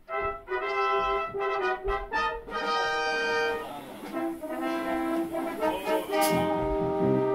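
Brass fanfare from an orchestra, with trumpets and trombones playing a series of held chords. It starts suddenly.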